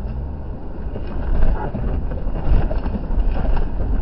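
Off-road vehicle driving through a shallow rocky creek: a low, steady engine rumble under irregular splashing and jostling, with the loudest surge about a second and a half in.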